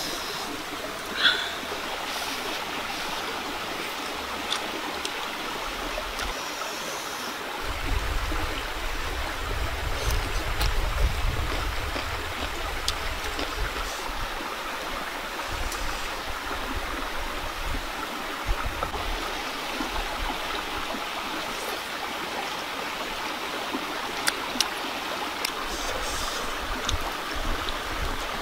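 Steady rushing of running water, like a stream, with a few light clicks and a low rumble around eight to twelve seconds in.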